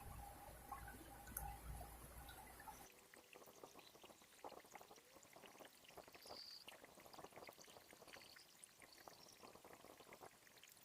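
Near silence: a faint low rumble that stops abruptly about three seconds in, followed by faint scattered ticks and drips.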